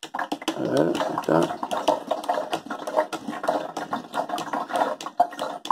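Aquarium gravel siphon sucking water, with gravel rattling and clicking inside its clear plastic tube as the suction lifts it from the substrate; it is pulling up too much gravel.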